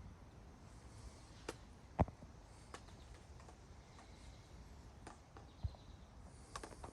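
Faint footsteps on a rocky, leaf-covered trail: a few irregular scuffs and knocks, the sharpest about two seconds in.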